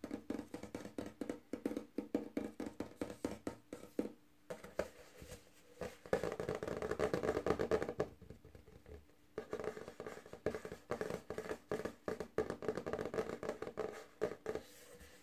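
Fingernails tapping quickly on the back of a black dinner plate, in fast flurries with short pauses about four seconds and eight seconds in.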